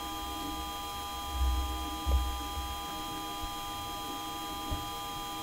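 Steady electronic hum made of several pure high tones over a light hiss, with two low dull thumps about one and a half and two seconds in.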